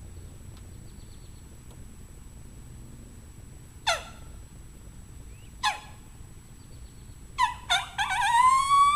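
Custom diaphragm coyote howler blown by mouth. It gives two short barks that drop sharply in pitch, a couple of seconds apart, then two quick yips, and near the end a long howl that rises and then holds its pitch.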